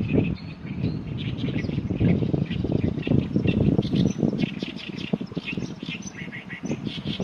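Oriental reed warbler singing its loud, harsh, chattering song of rapid repeated notes, with wind rumbling on the microphone.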